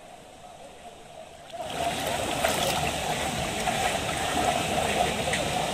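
Floodwater rushing in a steady noisy wash that comes in about a second and a half in, after a brief low hush.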